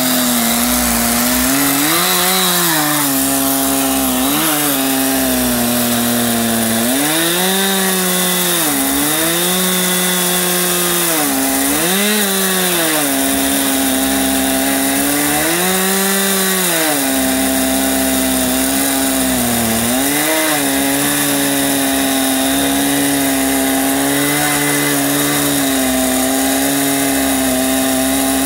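Chainsaw in an Alaskan chainsaw mill ripping along a log, its engine held at high speed. The engine pitch holds steady and rises and falls back several times.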